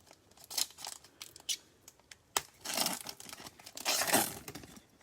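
A trading-card pack wrapper being torn open and crinkled: a few light rustles and clicks, a sharp snap, then two longer tearing rips about three and four seconds in.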